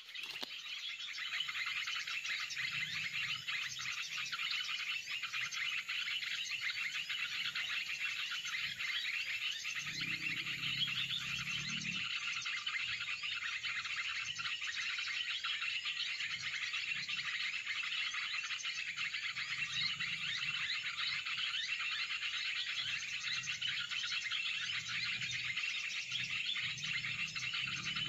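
Dense, steady chorus of high-pitched chirping from tropical forest wildlife, with no single call standing out.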